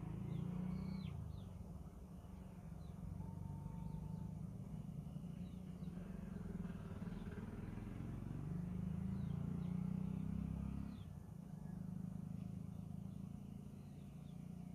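Background noise under a pause in the narration: a low rumble that swells and fades, with a few faint bird chirps.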